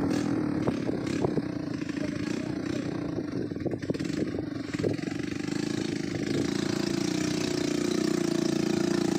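Cargo motorcycle's engine running with irregular clattering knocks, then settling into a steady, even running note about six seconds in.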